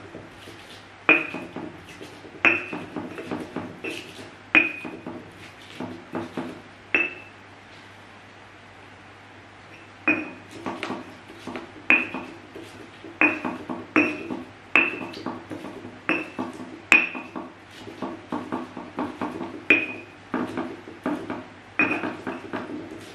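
Stone pestle pounding and grinding green chilies in a stone mortar (ulekan in a cobek): irregular knocks of stone on stone, each with a short ringing clink. The knocks pause for about two seconds a third of the way in.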